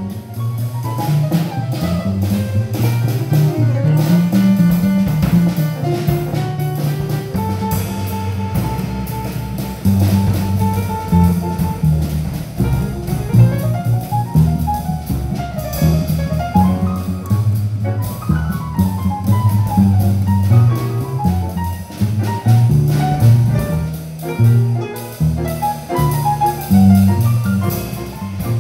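Small jazz combo playing: a double bass walking in steady stepping notes and a drum kit keeping time on the cymbals under a piano lead line with quick runs.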